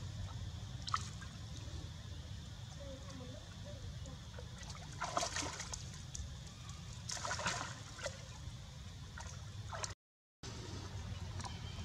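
Water sloshing and splashing as macaques swim and wade in a shallow canal, with two brief louder splashes about five and seven seconds in, over a steady low rumble. The sound drops out briefly near the end.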